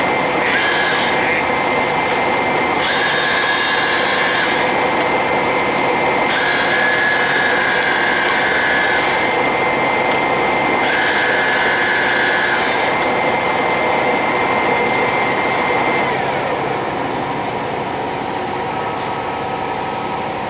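A 1993 Summit 20" x 80" gap bed engine lathe running, its gear train giving a steady whine, with a higher-pitched gear whine that comes and goes four times as the carriage drive is engaged. About sixteen seconds in, the main whine falls in pitch and fades as the machine winds down.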